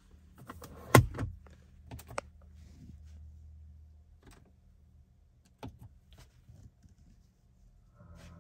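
Clicks and knocks from a gloved hand working a car's centre-console controls: a loud knock about a second in, then scattered clicks as buttons on the infotainment unit are pressed, over a low steady hum.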